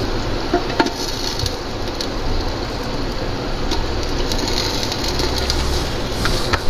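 Raw chicken pieces sizzling as they slide into hot ghee with frying onions, a steady hiss, with a few sharp clicks as pieces and the wooden spoon knock against the pot.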